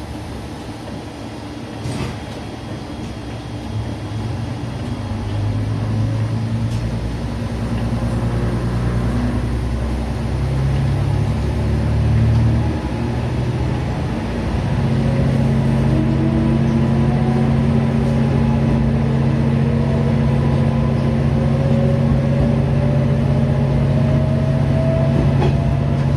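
Niigata Transys NDC diesel railcar pulling away, its engine building up. The engine note steps up about fifteen seconds in, and from then a whine climbs steadily as the railcar gathers speed. A single click sounds about two seconds in.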